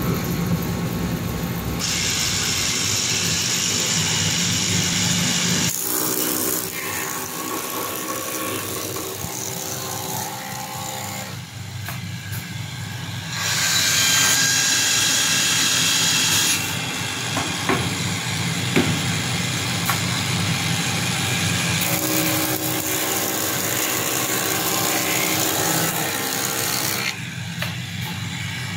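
Woodworking moulder and multi-spindle drilling machine running: a steady motor hum, with stretches of several seconds of louder, hissy cutting noise as the wooden bar is milled and bored by the row of drill bits.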